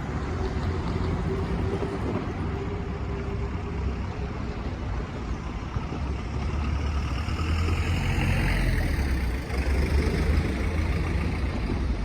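Engine noise with a steady low rumble that grows louder from about seven seconds in and eases again near the end.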